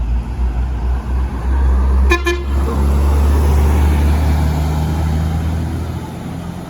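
Bus diesel engine passing close, its low rumble swelling and then fading near the end, with one short horn toot about two seconds in.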